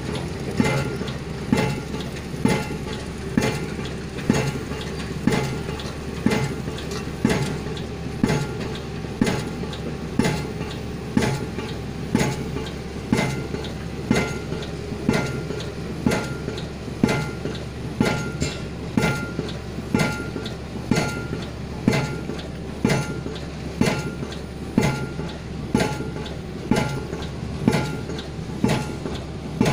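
Pile-driving hammer on a crawler piling rig driving concrete piles, striking in a steady rhythm of a little more than one heavy blow a second, each blow with a short metallic ring, over a steady low rumble.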